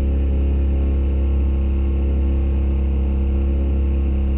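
Sailboat's engine running steadily under way, a constant low drone heard from inside the cabin.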